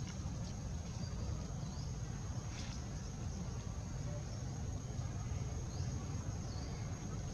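Forest ambience: a steady high-pitched insect drone over a constant low rumble, with a few short high chirps scattered through.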